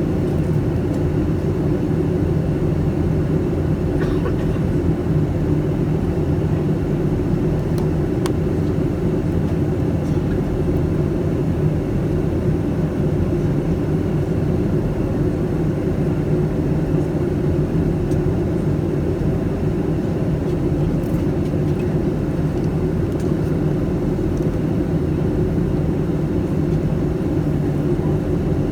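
Steady low rumble of engine and airflow noise inside the cabin of a Boeing 757-200 airliner descending on approach to land.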